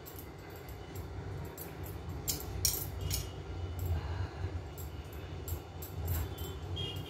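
Boiled basmati rice being scooped by hand from a steel strainer and dropped into a steel pot, with soft rustling and several light metal clinks and scrapes, the loudest a little over two seconds in. A steady low hum runs underneath.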